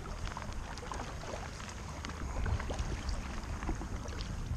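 Kayak paddling on calm water: paddle blades dipping in and dripping, with small splashes and water lapping against the hull, over a steady low rumble.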